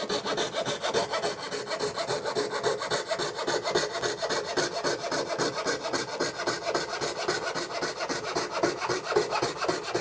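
Coping saw cutting along the profile of a painted wooden crown molding in quick, even back-and-forth strokes. The blade is dull, which makes the wood splinter.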